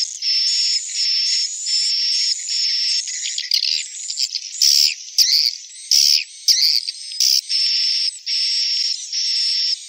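Swiftlet call sound, the recorded swiftlet twittering that is played to lure swiftlets into a nesting house. It is a run of buzzy chirping bursts, about two a second with short gaps, broken in the middle by a stretch of varied sharp chirps and sweeping notes before the bursts resume.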